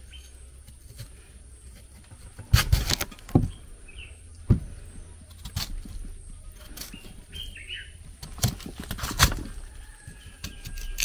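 A few sharp knocks and clatters, a quick cluster about two and a half seconds in and single ones later, with birds chirping briefly in the background.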